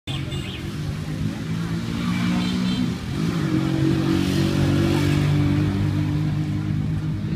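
An engine running close by, steady, with its pitch dipping and then rising again about three seconds in before settling a little louder.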